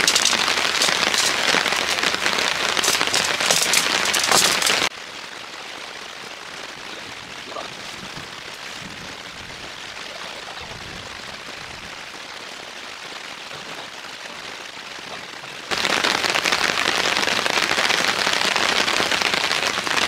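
Heavy summer downpour hissing steadily, dropping abruptly to a softer rain about five seconds in and coming back heavy about sixteen seconds in.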